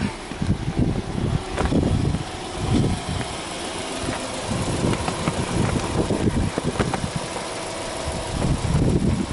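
Subaru Impreza 1.5i-L's 1.5-litre flat-four boxer engine idling, with irregular low buffeting on the microphone over it.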